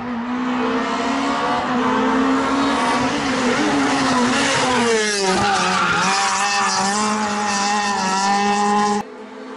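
Renault Clio R3 rally car's four-cylinder engine held at high revs while the front wheels spin and the tyres squeal and smoke through a tight turn; the engine note dips and swings in pitch about halfway, then is held high again. The sound cuts off abruptly near the end.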